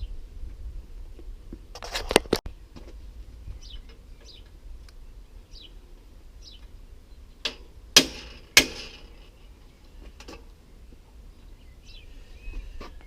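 A hammer striking a steel drift to knock a seized part off an old bicycle's crank: a pair of sharp blows, then a louder group of three, with a couple of lighter taps later. Faint bird chirps between the blows.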